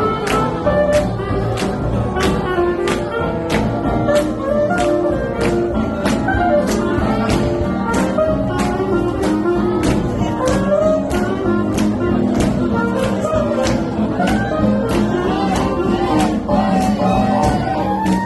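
Swing jazz music with a vocalist and a steady beat of about two strokes a second.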